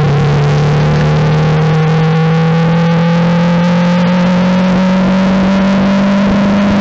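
Formula 4 race car's 1.6-litre turbocharged four-cylinder engine, heard onboard at full throttle, accelerating steadily in fourth gear. Its note dips briefly at the start, then rises slowly and evenly as the revs build.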